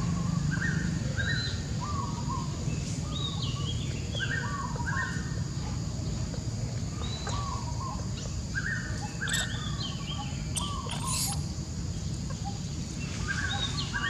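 A songbird repeating a short phrase of quick gliding notes every couple of seconds, over a steady low background rumble, with a few sharp clicks about ten seconds in.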